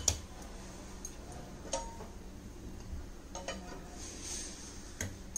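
A few faint, scattered clicks and clinks of steel kitchenware, with a sharper click at the end, over a low steady hum.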